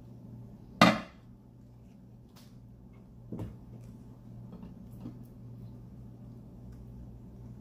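A dish set down with a single sharp clack about a second in, followed by a softer knock a couple of seconds later and light handling taps, over a steady low hum.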